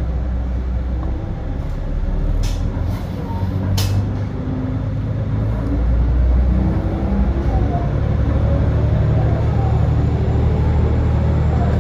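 Kiha 350 diesel railcar pulling away from a station: its diesel engine runs under load, louder from about halfway in. Two short sharp air hisses from the brake gear come about two and a half and four seconds in.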